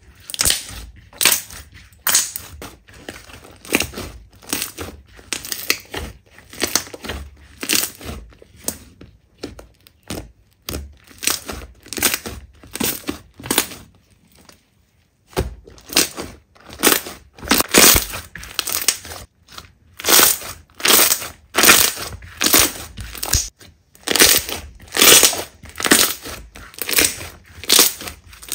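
Slime squeezed and pressed by hand in repeated strokes, roughly one to two a second, each a short squelching crackle, with a brief pause about halfway through.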